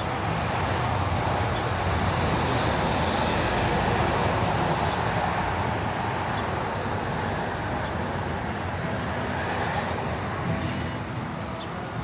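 Steady road-traffic noise, with a few faint, short, high chirps every second or two.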